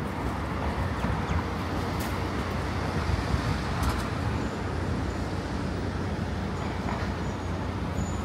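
Steady city street traffic noise as cars and a van drive through an intersection.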